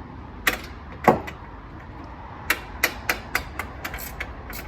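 Sharp metal knocks and taps from tools on a car's brake assembly, with the strikes coming like a hammer's. Two separate knocks come first, the second loud and ringing briefly, then a quicker irregular run of about eight lighter taps.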